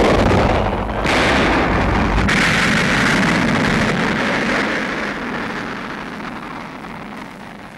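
Soundtrack explosion: a sudden loud blast of noise that surges again about a second in, then a long hissing rumble that slowly dies away.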